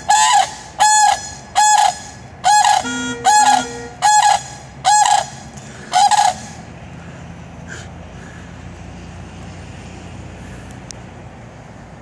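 Sandhill crane giving a series of loud honking calls, about one a second, about eight in all, stopping about six seconds in.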